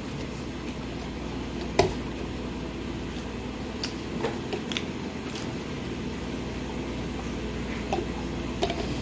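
Close-up chewing of a grilled sandwich, with a few soft mouth clicks over a steady room hum. A sharp click about two seconds in is the loudest sound, and near the end comes a sip through a straw.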